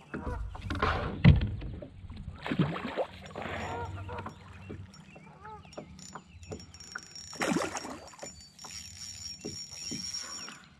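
Knocks and thumps of rods and gear being handled in a fishing kayak, the loudest a sharp thump about a second in, with geese honking now and then in the background.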